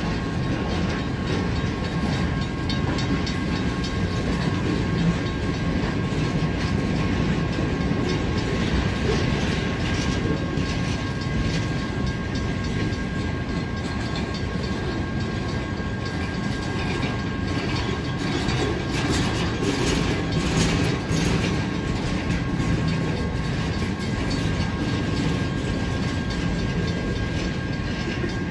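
A string of empty flatcars on a freight train rolling past: a steady rumble and rattle of steel wheels on rail. A faint steady high tone sits underneath, and there is a brief spell of sharper clatter about twenty seconds in.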